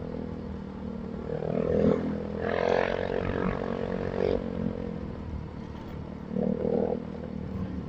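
Motorcycle engine running while riding, a steady drone with road and wind noise, swelling for a couple of seconds in the middle.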